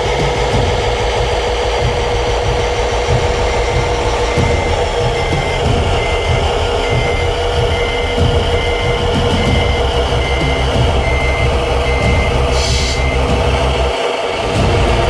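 A Tamiya Mercedes-Benz Arocs 3363 6x6 RC truck's sound unit plays a steady diesel-engine hum and a reversing beeper at about two beeps a second while the truck backs slowly up a steep ramp. Near the end the beeping stops and there is a short hiss.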